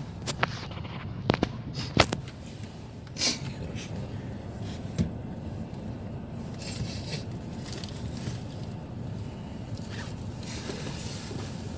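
A few sharp clicks and taps in the first three seconds and one more at about five seconds, from hands handling small objects in a car's cabin, over a steady low hum.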